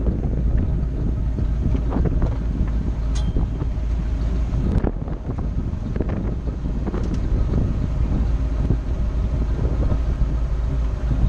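Wind buffeting the microphone over the low running of a Jeep Wrangler crawling closer over rock and stopping, with scattered clicks throughout and a brief falling squeak about three seconds in.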